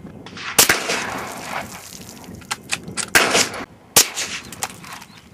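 .22 Long Rifle rifle shots, CCI Stinger rounds from a Ruger American: three sharp cracks, the first about half a second in and the last two less than a second apart near the three-second mark, with fainter clicks between them.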